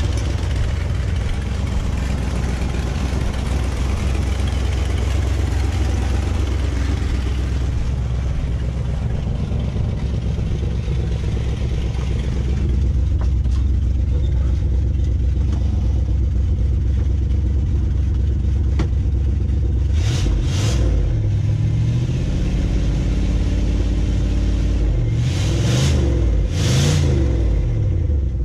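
Old Ford pickup plow truck's engine running at a steady idle, then revved in three short throttle blips near the end, each rising and falling back to idle.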